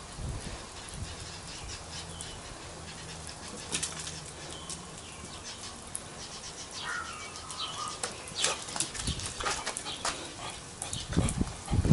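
Yellow Labrador puppy moving about on a wet concrete patio: scattered light clicks and scuffles, with heavier thuds near the end.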